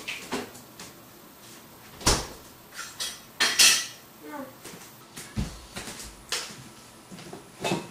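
Kitchen clatter: a series of separate knocks and clinks as dishes, containers and doors are handled, the loudest about three and a half seconds in.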